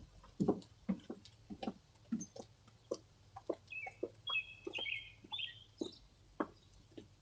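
Faint bird calls: an irregular run of short clucking notes, with a few higher chirps around the middle.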